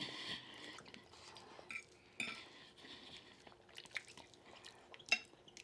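Faint, scattered clinks and taps of cutlery on plates and dishes during a meal, with a sharper click about five seconds in.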